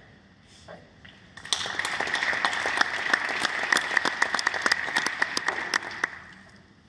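Arena audience applauding: a burst of clapping starts about a second and a half in, holds for several seconds, then dies away near the end.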